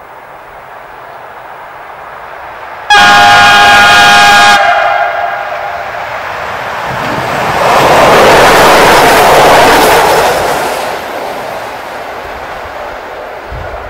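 PKP class SP32 diesel locomotive sounding its horn in one sudden, loud blast of about a second and a half, about three seconds in. It then passes with its train, the engine and wheel noise swelling to a peak and fading away.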